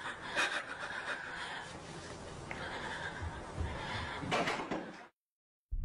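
A girl laughing in a close, handheld recording, with knocks from the phone being handled, twice. The sound cuts off abruptly about five seconds in.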